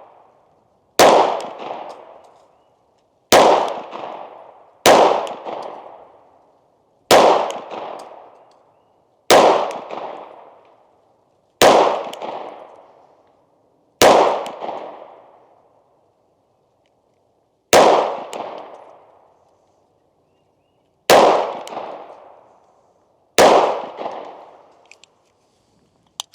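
SIG Sauer P365 XL 9mm pistol fired ten times in slow, aimed succession, the shots one and a half to three and a half seconds apart, each one echoing away over a second or so. The pistol cycles every round without a malfunction.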